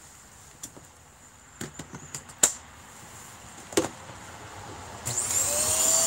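Plastic clicks and knocks of a Hoover Air Steerable upright vacuum being handled as its dust cup and hose are fitted back on, the loudest about two and a half seconds in. About five seconds in the vacuum's motor switches on and spins up with a rising whine into a steady run.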